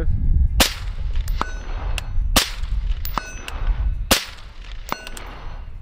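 Three suppressed 5.56 shots from a Mk12-style rifle with an 18-inch barrel, a little under two seconds apart. Each is answered just under a second later by the ringing ding of the bullet hitting a steel target downrange.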